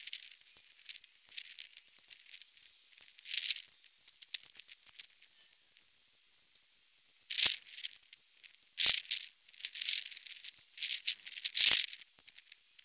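Dense, irregular clicking and rattling from lead-bullet casting with a Lee six-cavity mold, all of it high-pitched. Three louder knocks stand out in the second half.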